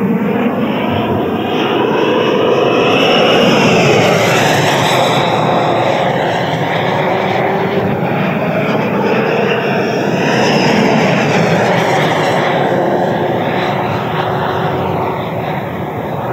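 JETFAN-120 PRO electric ducted fan with a HET Typhoon motor, driving a large RC jet model at full power: a loud rushing whine with a high fan tone that swells and bends in pitch as the jet passes, loudest about four seconds in and again about ten seconds in.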